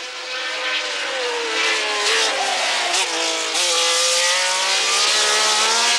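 Ferrari 312T2 Formula One car's flat-twelve engine running hard at racing revs. Its note dips and climbs again several times through the bends and grows louder towards the end.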